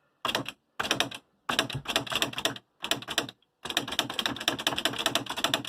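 Electric Smith Corona print-wheel typewriter typing a test run of characters: fast clatter of strikes as the print wheel hits the paper, in about five quick spurts with short pauses between them, the last the longest.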